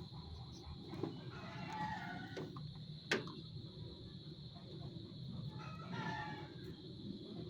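A rooster crowing twice, once about two seconds in and again about six seconds in, with a single sharp click around three seconds, over a steady high tone and low hum.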